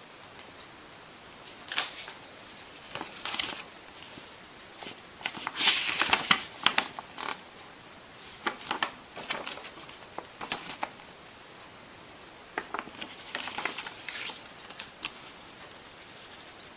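Intermittent rustling and clicking from hands handling objects, coming in short scattered bursts, busiest about a third of the way in and again near the end, over a faint steady high-pitched whine.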